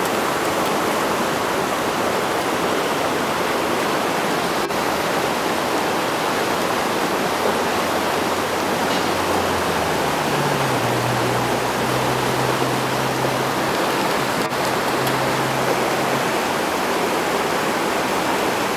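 A rocky river rushing steadily over stones: an even, unbroken rush of water.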